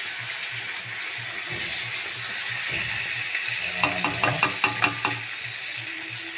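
Meat sizzling as it fries in oil in a pan, stirred with a spatula. A quick run of sharp clicks comes about four seconds in as the spatula knocks and scrapes against the pan.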